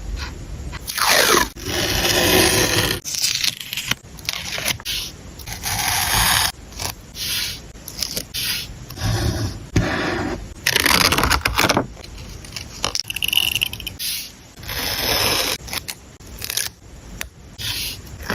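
Paper and collage materials being handled and rubbed onto a journal page: a run of irregular scraping and crackling strokes, each up to about a second long, with short pauses between them.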